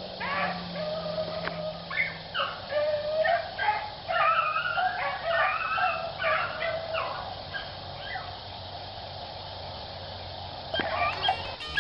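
Beagles baying on a rabbit's track: several overlapping, gliding calls for the first eight seconds or so, then thinning out. The baying is the sign that the hounds are on the scent and in pursuit.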